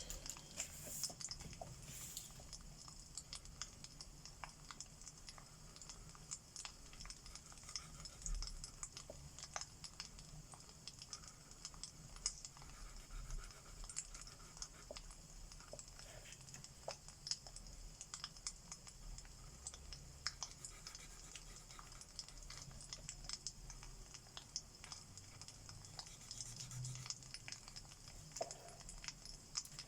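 Fireplace crackling in small irregular pops, mixed with the faint scratch of alcohol markers on paper.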